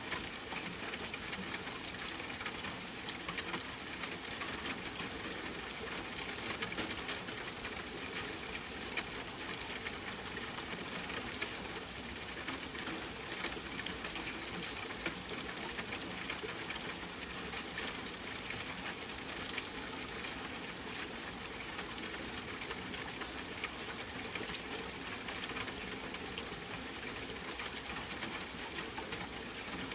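Steady rain falling, a continuous hiss of dense raindrop patter that neither builds nor fades.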